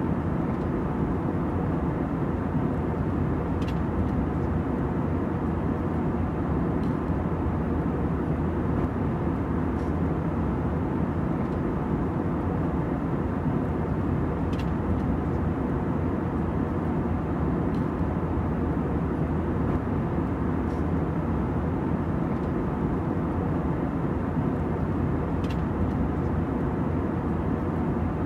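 Steady cabin drone of an Airbus A320 in flight, a mix of engine and airflow noise, with a few faint clicks.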